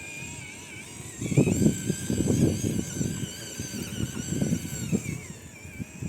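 Electric motor and plastic gearbox of a WPL C-94 UAZ 469 RC car whining, the whine rising and falling with the throttle, over an irregular rumble and crunch of the small tyres and drivetrain running over the ground.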